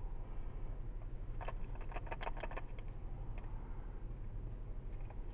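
Steady low rumble of road noise inside a moving car. About a second and a half in there is a quick run of small clicks and crinkles as a small red-capped plastic container is worked open and a plastic bag is handled.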